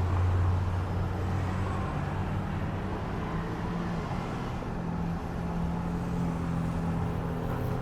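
Road traffic at an intersection: vehicle engines idling and running over a steady wash of road noise, with a deep engine drone that fades out about two seconds in.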